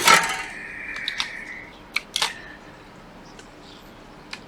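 Small hand tools and parts being handled on a workbench: a sharp clack at the start with a brief ringing tone after it, then a few light, scattered clicks.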